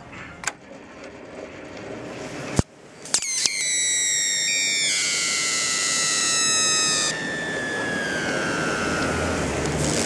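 About 2,000 volts from a microwave oven transformer arcing and burning through a green dandelion stalk. A few sharp cracks come first, then from about three and a half seconds in a loud, high-pitched squeal with hissing that slowly falls in pitch.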